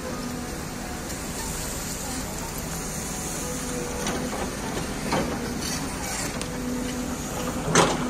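Excavator diesel engine running with a steady hum, with a few light knocks and one sharp clank shortly before the end.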